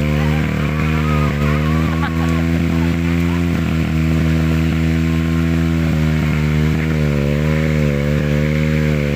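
Motorcycle engine running hard at steady high revs on a muddy trail climb, its pitch dipping briefly and recovering a few times as the revs waver.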